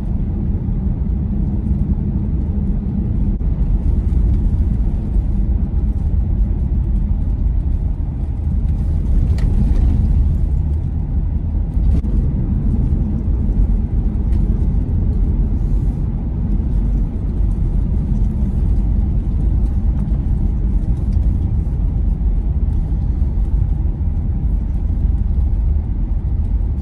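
Car driving along a paved road, heard from inside the cabin: a steady low rumble of tyres and engine.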